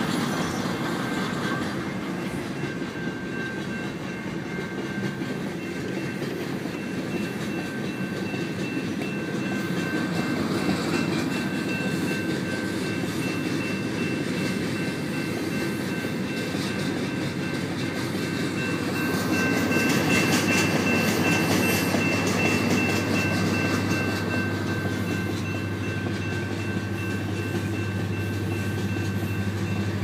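Iron ore train rolling slowly past, its cars' wheels clicking over the rail joints, with a thin steady high whine throughout. About two-thirds of the way through it grows louder and a steady low diesel drone sets in, the CN EMD SD50F pusher locomotive's engine.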